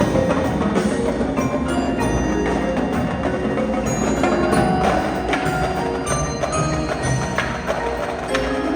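Winter percussion ensemble playing a mallet-percussion passage: many ringing, bell-like keyboard notes overlapping, cut through by sharp, dry clicks.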